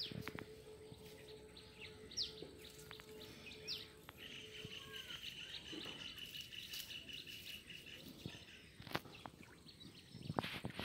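Rural outdoor ambience: a few short, falling bird chirps and a steady high-pitched insect drone that stops about eight seconds in, with a few faint clicks.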